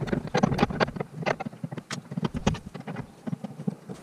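Hand tools and metal parts clicking and tapping irregularly as a shoulder bolt is fitted into a metal bracket.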